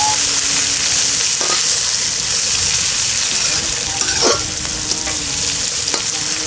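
Spices frying in hot ghee for the tempering (phutana) of dalma: a steady sizzle, with a ladle stirring and scraping the pan a couple of times.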